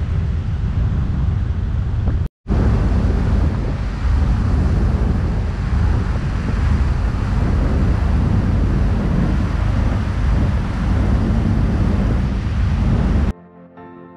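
Heavy wind rumble on the microphone, a dense low noise broken by a brief cut a little over two seconds in. It stops abruptly near the end, where soft music starts.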